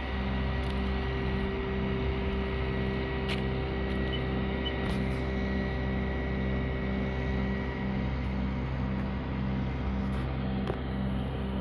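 A large vehicle engine running steadily, with a low throb repeating about twice a second over a steady hum.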